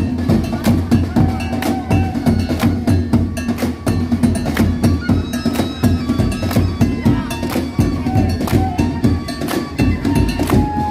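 Patrol sahur music: a percussion band playing a fast, dense rhythm of wooden knocks and drums, with a melody held over it.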